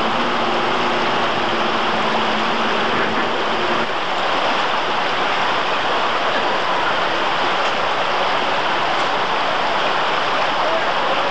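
Loud, steady rush of floodwater. For the first four seconds a steady low drone sits over it, then stops suddenly.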